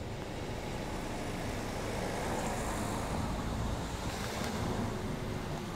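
Steady outdoor background noise: a low rumble with a fainter hiss over it, like distant road traffic and wind on the microphone.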